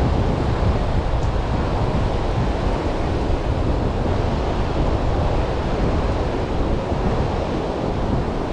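Ocean surf washing steadily onto the shore, with wind buffeting the microphone.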